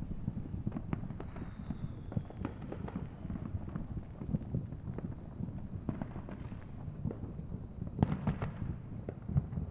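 Fireworks going off: scattered crackling pops and bangs, with a dense burst of cracks about eight seconds in.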